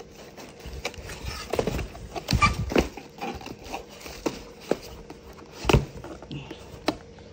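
Rustling of paper packaging and shredded filler as cardboard candle boxes are handled, with several sharp knocks, the loudest about three-quarters of the way through.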